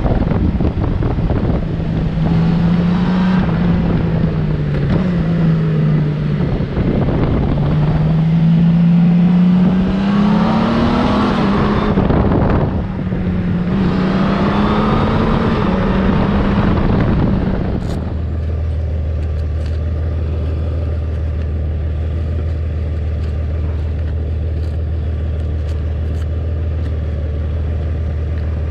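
2020 Honda Gold Wing's flat-six engine running on the move over wind noise, its pitch rising and falling with the throttle. About two-thirds of the way through it settles to a steady low idle as the bike comes to a stop.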